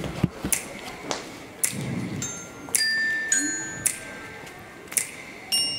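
Music: high, bell-like mallet tones ringing over sharp percussive clicks, with no voice.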